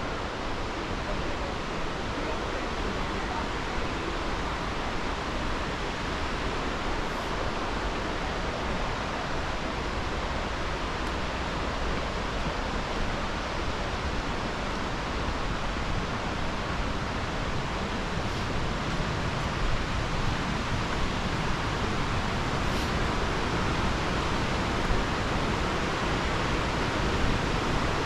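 Jōren Falls, a 25 m waterfall, with its water pouring steadily into the pool below: an even rush of water with no break, a little louder in the second half.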